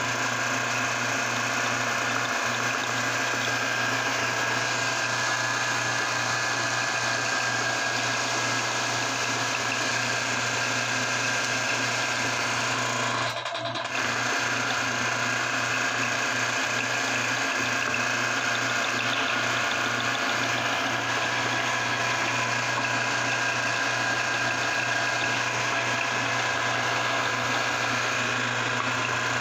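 Motor-driven aluminium meat grinder running steadily while it extrudes soft white strands through its plate: a constant low hum with a steady high whine over it. There is a brief dip about halfway through.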